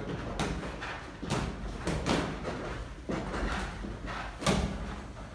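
Boxing gloves thudding and slapping during sparring: about half a dozen irregular hits, the sharpest about four and a half seconds in.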